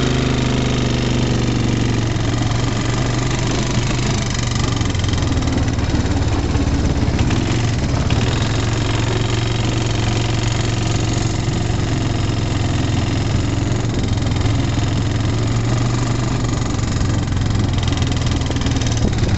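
Quad bike (ATV) engine running steadily while it is ridden along a rough track, heard close up from the bike itself.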